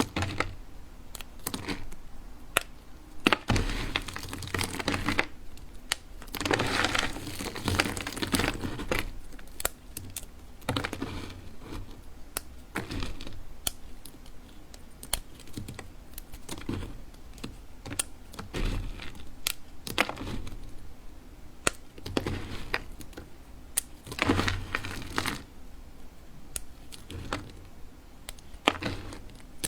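Dry bar soap being cut and crushed with a blade: crisp clicks and crunches, with several longer stretches of dense crackling.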